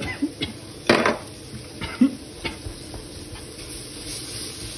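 A spoon clinks and scrapes in a glass jar of coconut fat, then a wooden spatula scrapes and stirs onion, grated carrot and chili powder in a hot frying pan. There are a few sharp knocks, the loudest about one and two seconds in, and a light sizzle grows near the end.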